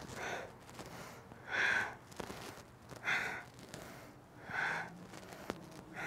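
A woman breathing forcefully in time with side crunches, one breath about every second and a half.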